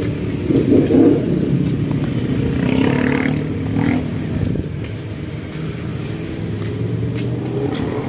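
Street traffic close by: small motorcycle or tricycle engines running, with a swell as one revs and passes about three seconds in.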